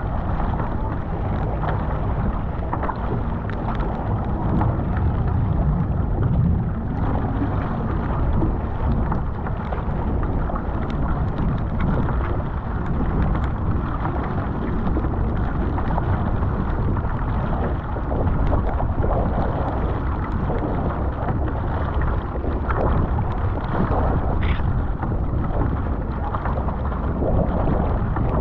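Wind buffeting the microphone and choppy sea water splashing against the hull of a Fenn Elite S surfski as it is paddled through rough water: a steady rushing noise, heaviest in the low end, with irregular splashes.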